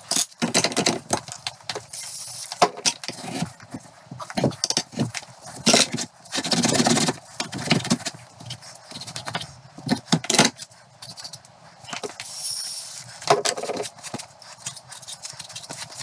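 Irregular metallic clinks, knocks and scrapes as a classic Mini's front top suspension arm, its old needle roller bearing pieces and hand tools are handled at a steel bench vice, busiest about six to eight seconds in.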